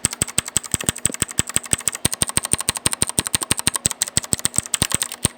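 Redragon K552 mechanical keyboard's Outemu Blue clicky switches being pressed rapidly and repeatedly close to the microphone: a fast, even run of sharp clicks, about ten a second.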